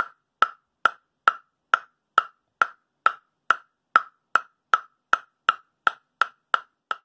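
A plastic table tennis ball bouncing steadily on the bare wooden faces of two blades, the DHS Hurricane 301 and Hurricane 301x, in sharp hollow taps a little over two a second that quicken slightly near the end. The 301 gives the lower-pitched tap and the 301x the higher.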